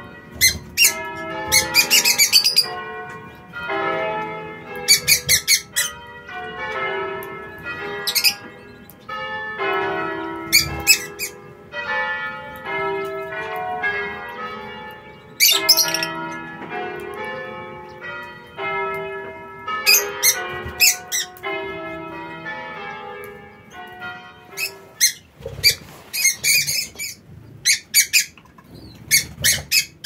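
Bell-like chiming tones sounding one note after another, with short, sharp, high bird chirps breaking in every few seconds. The chirps come thicker near the end as the chiming fades.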